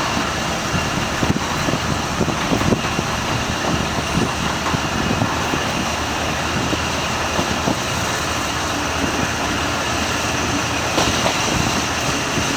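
Electric bell of a railway level crossing ringing steadily while a diesel railcar passes over the crossing, with scattered low knocks from the wheels.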